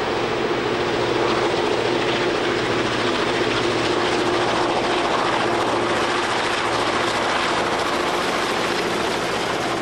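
Diesel-electric locomotives of the 42 class passing close while hauling a passenger train. Their engines run in a steady drone with a constant low hum through it.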